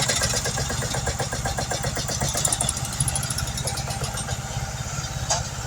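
Engine of railroad track maintenance equipment running steadily with an even low pulse, and one short sharp knock near the end.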